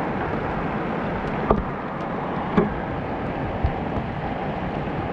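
Steady rush of water running through a shallow channel along a brick wall, with three short thumps spaced about a second apart.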